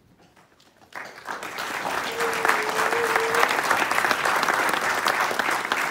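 Audience applauding: after a brief hush, clapping starts about a second in, swells within a second and holds as a full, steady round of applause.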